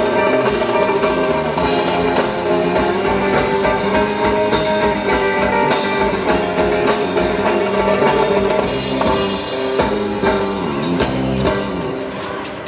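Live band music, guitar with drum kit and percussion, playing an instrumental passage with a steady beat that eases off slightly near the end.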